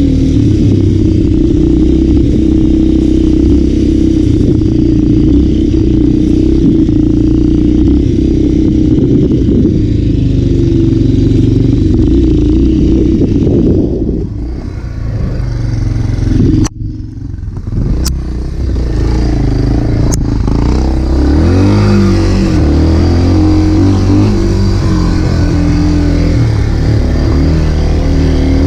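Trail motorcycle engine running under load while riding. About halfway through it eases off, there is a brief drop with a few sharp clicks, and then the engine pitch rises and falls with the throttle.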